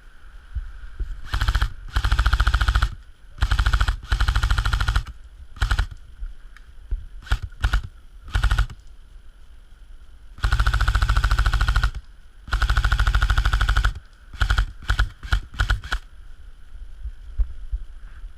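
Airsoft gun firing on full auto in a series of bursts. Several long bursts of a second or more are mixed with short stabs of a few rounds, and the firing stops about two seconds before the end.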